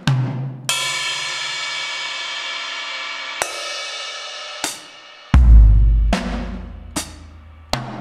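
Sampled vintage 1940s–50s drum kit, the Ebony kit of Native Instruments' Abbey Road Vintage Drummer, played one hit at a time. A cymbal crash rings for nearly three seconds and is followed by another cymbal hit. About five seconds in comes a deep low drum hit, the loudest sound, then a few more single drum hits.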